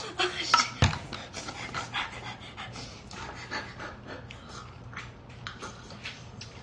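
A person slurping noodles, with a knock about a second in. Then a run of quick, short panting breaths and mouth noises, typical of eating spicy noodles.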